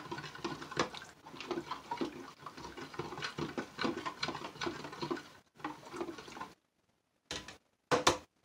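Metal spoon stirring and scraping inside a plastic measuring jug of lye solution to dissolve silk: quick, irregular scrapes and taps against the jug's sides. It stops sharply about six and a half seconds in, and a couple of sharp knocks follow near the end.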